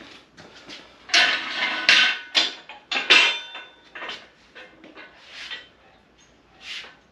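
Steel shop crane parts clanking and rattling as the crane is handled and folded. A cluster of loud metallic knocks with a ringing after them comes about one to three and a half seconds in, then lighter knocks.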